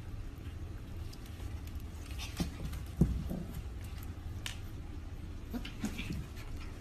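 Two mini goldendoodle puppies play-fighting on blankets, making a few short grunting or growling noises, with scattered small knocks and rustles. The loudest noise comes about three seconds in, over a steady low hum.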